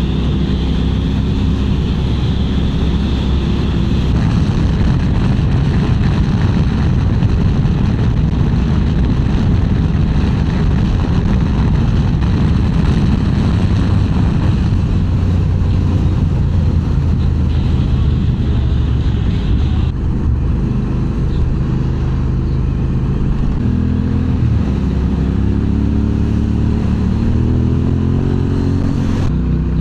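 Motorcycle engine running while under way, with a steady rush of wind noise. The engine note shifts with throttle a few times and climbs near the end.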